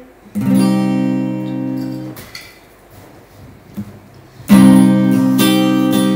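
Acoustic guitar strummed: one chord about half a second in, left to ring and fade for a couple of seconds, then after a pause, a loud strum near the end followed by a few more chords.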